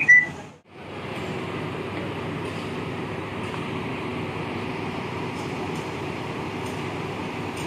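Steady rumble and hum of a bus station with coaches standing at the bays. It opens with a brief loud high squeak and cuts out for a moment just after.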